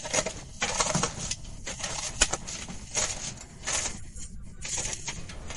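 Hand tools scraping and digging into gravelly sand in uneven strokes, with one sharp knock about two seconds in.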